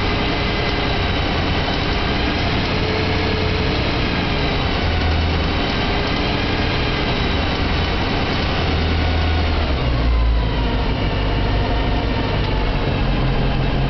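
BMW E92 M3's 4.0-litre V8 running, with the clicking noise it developed after its 1,200-mile service; the engine note drops about ten seconds in.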